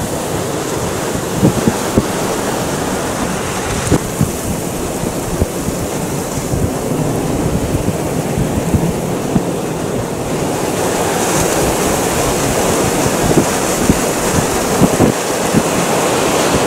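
Squall-line wind and heavy rain lashing a car, heard from inside: a dense roar of wind and rain, with many sharp taps of drops striking the glass and bodywork. It grows louder and hissier from about ten seconds in.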